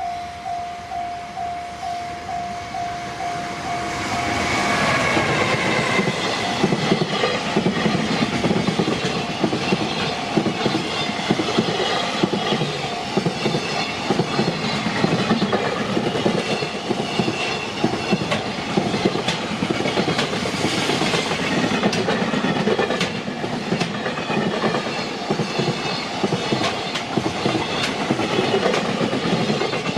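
Japanese level-crossing warning bell ringing in a steady beat of about two strikes a second. About four seconds in, a long freight train rushes through the crossing, drowning the bell, and its wheels clack over the rail joints for the rest of the pass.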